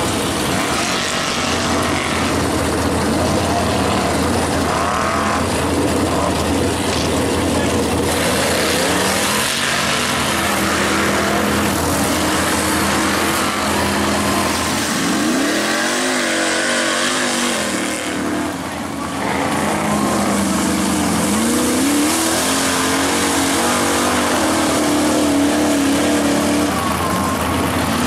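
Mega mud truck engine racing hard through a mud pit, running loud and steady, with its pitch swinging up and down several times in the middle as the throttle is worked.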